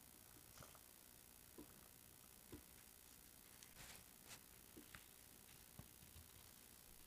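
Near silence with faint, scattered small clicks and soft noises of people eating by hand: fingers mixing rice and curry on a plate, and chewing.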